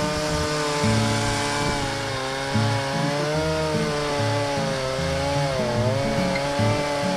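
Gas chainsaw running at high revs while cutting maple wood, its pitch wavering with the load and sagging briefly about two-thirds of the way through.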